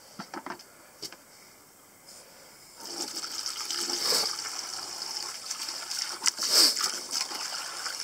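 Garden hose running water into a plastic bucket, coming on about three seconds in as a steady rush, with splashing as a sweet potato is rubbed clean under the flow. A few small splashes of the potato in the water come before it.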